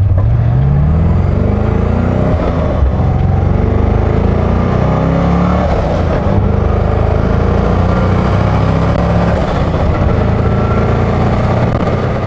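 Car engine running loudly and steadily, its pitch rising gently and easing back a few times as if under way; it fades out near the end.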